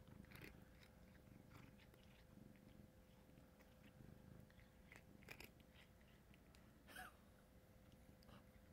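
A domestic cat chewing and crunching small crunchy treats, faint, with a few soft crunches scattered through it, the clearest about five and seven seconds in.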